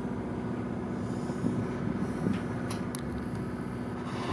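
Steady hum of an idling boat engine, with wind on the microphone; a louder rush of noise comes in near the end.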